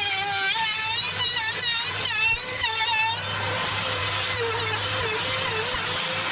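An electric motor running, its pitch wavering and dipping repeatedly, with a harsher, noisier wash coming in about three seconds in.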